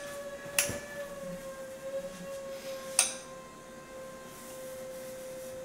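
A steady, slightly wavering hum holds on one pitch, broken by two sharp clicks, about half a second and three seconds in.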